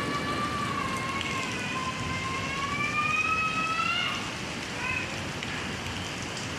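Steady rain falling, with a pitched wailing tone over it that glides slowly up and down and stops about four seconds in, then a short blip of it a second later.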